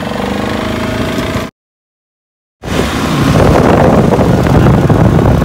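Suzuki KingQuad 750 ATV's single-cylinder engine running while being ridden. The sound drops out to complete silence for about a second, then returns louder and rougher.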